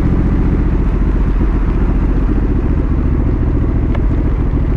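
Honda CRF1100L Africa Twin's parallel-twin engine running steadily while the bike is ridden, under a steady rush of wind and road noise.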